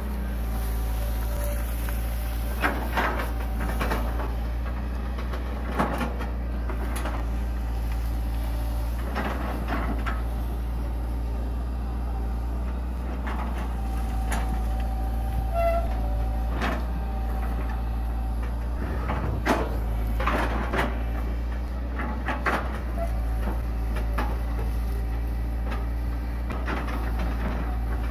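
Hitachi EX120 long-reach excavator's diesel engine running steadily under hydraulic load, with irregular knocks and clunks every few seconds as the arm and bucket dig and drag through banana trunks and bank soil.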